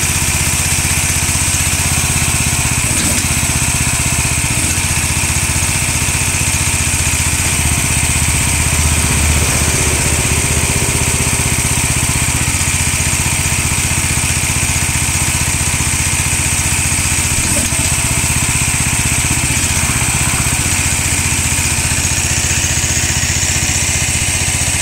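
Small engine of a tracked mini dumper running steadily, powering the hydraulics that raise the scissor lift and tip the hopper.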